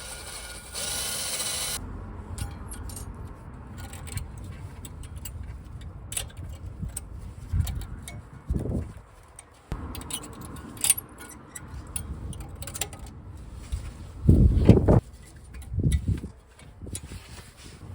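Hand work on a car's rear disc brake: a brief power-tool whirr about a second in, then scraping, rubbing and small metal clinks of brake parts being handled, with a few heavier knocks near the middle and towards the end.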